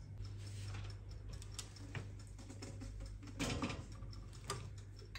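Scattered small clicks and taps of kitchen handling, then a brief metallic clatter about three and a half seconds in as an aluminium tube cake pan is slid onto an oven's wire rack, with a sharper click shortly after. A low steady hum runs underneath.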